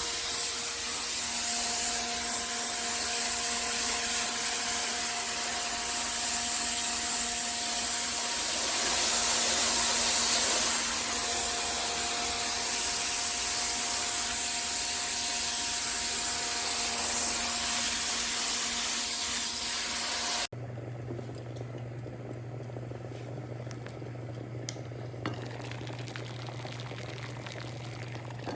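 Loud, steady spraying hiss with a few faint steady tones underneath. About twenty seconds in it cuts off suddenly and a much quieter steady low hum takes over.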